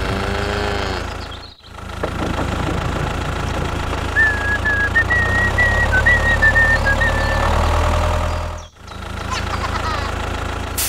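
Tractor engine running steadily with a rapid low beat, cutting out briefly twice.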